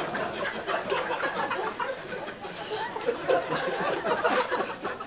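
Comedy-club audience laughing and chuckling.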